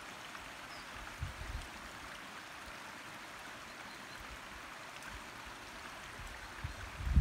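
Shallow rocky stream running steadily over stones, a constant babbling rush. A few dull low thumps about a second in and again just before the end.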